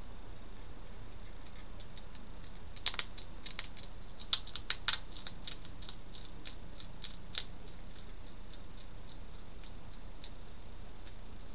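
Hedgehog eating from a dish: a run of small, sharp clicking and crunching sounds that grows busiest a few seconds in, then thins out, over a steady background hiss.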